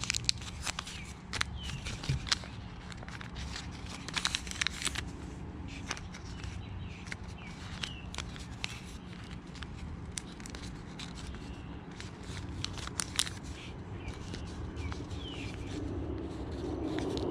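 Sheet of paper rustling and crackling with small sharp clicks as it is folded and pinched into creases by hand. Near the end the rumble of a jet aircraft passing overhead begins to rise.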